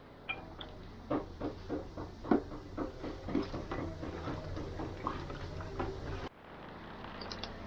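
An irregular run of short knocks and clatters, roughly two a second, over a steady low hum, like kitchen work with utensils or dishes; the sound changes abruptly near the end.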